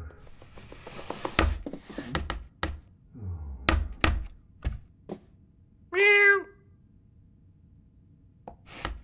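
Cartoon sound effects of a cat handling its food bowl on the floor: a scraping rustle, then a string of clunks and thuds. One loud cat meow comes about six seconds in, and a couple of soft knocks follow near the end.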